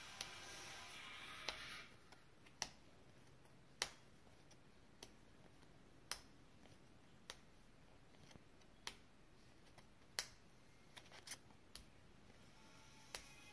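Sleeved Magic: The Gathering cards flicked through one at a time, each card giving a short sharp click as it is moved, about once a second with a quick run of clicks near the end. Faint music fades out about two seconds in.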